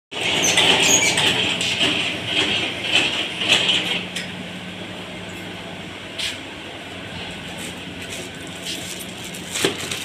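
Machinery running in a fan-motor winding workshop: a steady low hum under a loud hissing clatter that drops away about four seconds in, with a few sharp knocks, one about six seconds in and one near the end.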